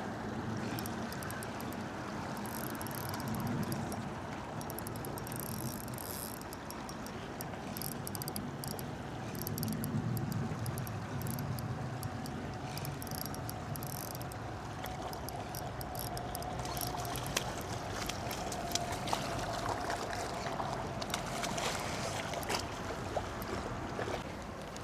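River water rushing steadily, with scattered sharp clicks and ticks in the second half.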